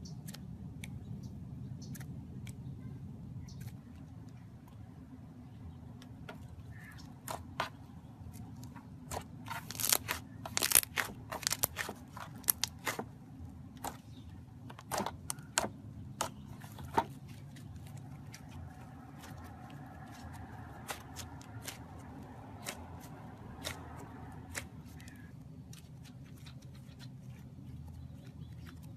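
Slime being handled and squeezed, giving scattered sharp crackling pops and clicks that come thickest in the middle, over a steady low hum.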